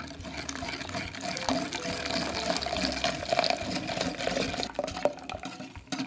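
Hot cream and milk poured in a thin stream into a glass bowl of egg yolks and sugar, splashing and filling, while a wire balloon whisk stirs and clicks against the glass. The pouring and whisking tail off near the end.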